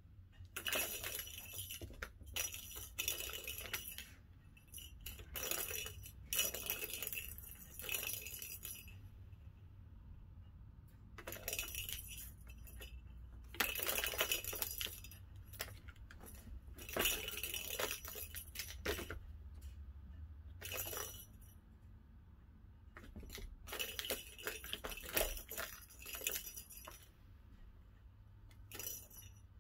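Small balls rolling and rattling around the tracks of a plastic tower-of-tracks cat toy as a kitten bats them, with a bright jingling ring. It comes in several bursts of a few seconds each, with short pauses between.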